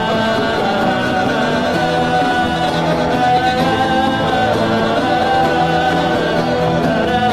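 Church worship music with a crowd of voices singing and praying aloud in tongues (glossolalia) over it, repeated syllables like 'a-da-da-da, di-di-di'.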